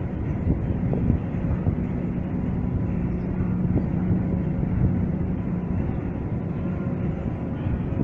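Steady mechanical hum and rumble of the old Niederfinow boat lift's machinery running while the trough hangs on its counterweight cables, with a few faint clicks.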